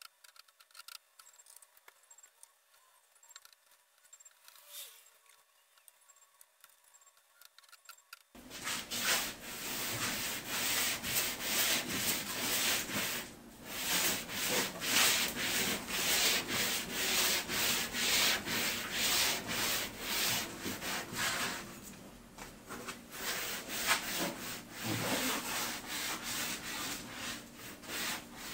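After about eight quiet seconds, sandpaper on a hand sanding block rubs back and forth in quick repeated strokes over cured epoxy on a fiberglass canoe. The epoxy is being lightly scuffed so that varnish will adhere.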